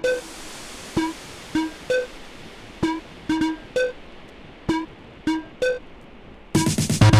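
Electronic music played through a DJ's turntable-and-mixer setup: short, sparse synth notes at an uneven rhythm, then a loud, dense passage with deep bass about six and a half seconds in.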